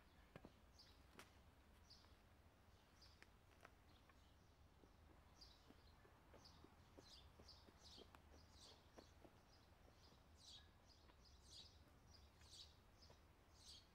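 Faint woodland birdsong: a small bird's short high chirps, repeated many times and coming thicker from about five seconds in, over a low steady rumble. A few faint sharp clicks or knocks sound in the first few seconds.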